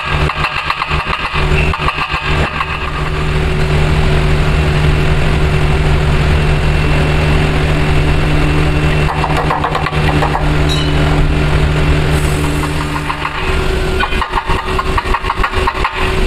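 An engine running, rough and pulsing at first, settling into a steady hum about a second in, then turning uneven again near the end.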